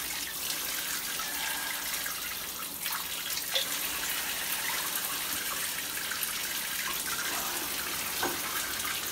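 Water running steadily from a handheld shower and splashing over a dog standing in a plastic bath tub, with a few brief splashes in the second half.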